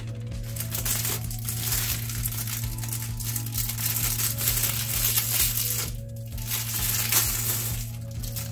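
Clear plastic wrapping crinkling and rustling as a flexible hose is pulled out of it, in two spells with a short break about six seconds in, over background music.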